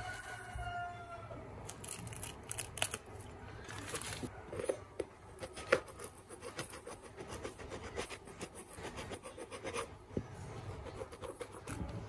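Metal spoon scraping the black top coat of paint off the upper of a Nike Air Force 1 Para-Noise, in quick, irregular scratchy strokes, with a sharp click about six seconds in. The black layer is made to be scraped away, so that the coloured design beneath shows through.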